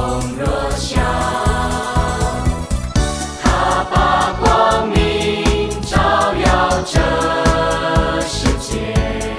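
Song with a choir of voices singing over a steady beat: backing music for an exercise routine.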